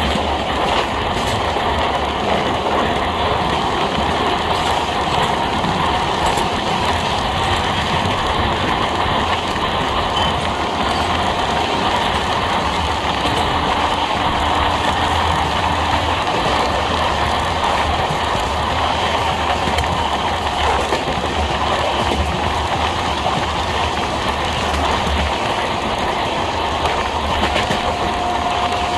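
Dhauli Express passenger coach running along the track, heard from aboard the moving train: a steady, continuous noise of wheels on the rails. A faint steady tone joins near the end.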